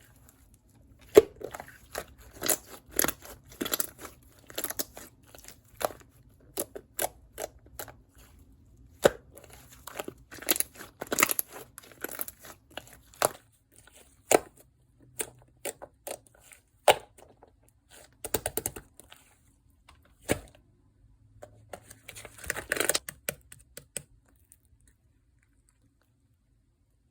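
Black fondant slime being pressed, poked and squished by hand, giving irregular bursts of small sticky crackles and pops with short pauses between them. It stops about 24 seconds in.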